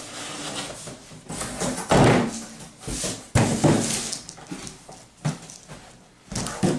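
Large corrugated cardboard moving box being turned over and set down on a wooden bench, its flaps folded open, with a few hollow thumps: the loudest about two seconds in, another a second or so later, and one near the end, between scraping and rubbing of cardboard.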